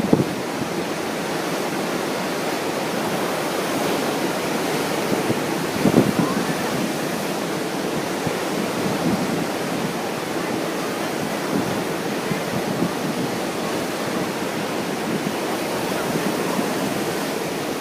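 Steady ocean surf washing in strong wind, with gusts buffeting the microphone just at the start and about six seconds in.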